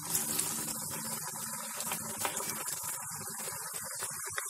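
Onion bhajiya batter balls deep-frying in medium-hot oil: a steady sizzle with fine crackling throughout.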